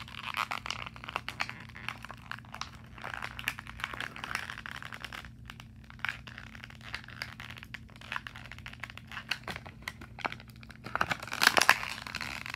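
Plastic toy packaging crinkling and crackling, with scattered clicks, as a boxed action figure is pried out of its packaging. There is a louder burst of crackling near the end.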